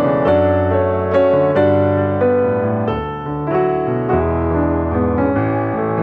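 Background piano music: a run of changing notes over held low notes, about two notes a second.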